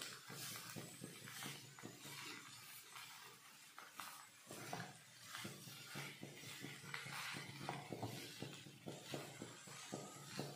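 Silicone spatula stirring and mashing boiled potatoes in a kadhai: faint, repeated soft scrapes and taps against the pan.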